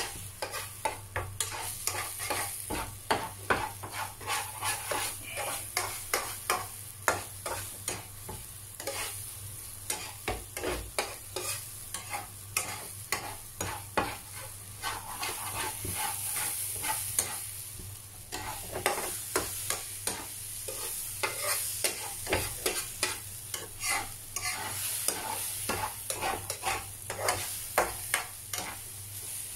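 Metal slotted spatula scraping and tapping against a non-stick frying pan while scrambling eggs, in irregular strokes, over a steady sizzle of frying. A steady low hum runs underneath.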